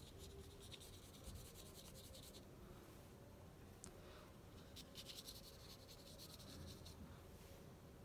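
Faint scratching of a wet paintbrush dragged over marker lines on paper, coming in short spells of strokes.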